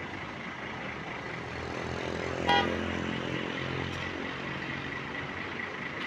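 A bus drives past with its engine running, swelling and fading over a couple of seconds, and gives one very short horn blast about two and a half seconds in.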